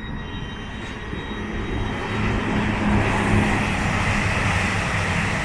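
East Midlands Railway Class 222 Meridian diesel multiple unit running through the station at speed. Its engine hum and wheel-on-rail noise swell over the first three seconds, then hold loud and steady.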